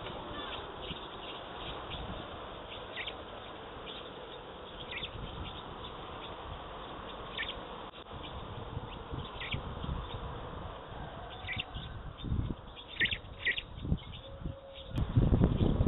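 Small birds chirping: short single high chirps every second or two, bunched together a little after the middle, over a steady outdoor background hiss. A louder low rumbling noise starts about a second before the end.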